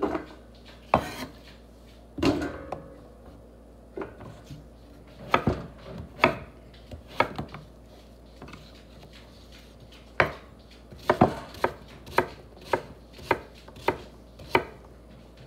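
Kitchen knife chopping a peeled vegetable into chunks on a wooden cutting board: sharp, separate knocks of the blade against the board at an uneven pace, with a quicker run of cuts in the second half.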